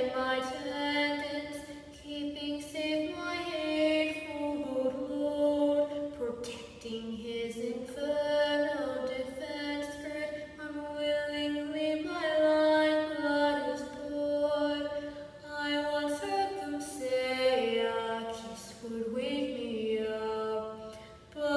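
A woman singing a cappella, unaccompanied, in long held notes that move from pitch to pitch. The phrases last several seconds each, with short breaks between them.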